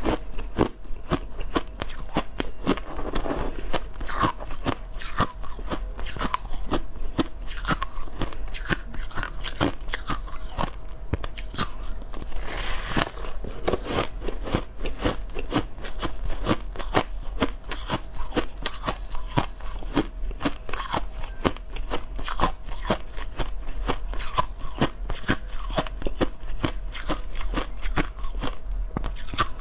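Crushed ice chewed close to the microphone: continuous crunching and crackling, several bites a second with no pause.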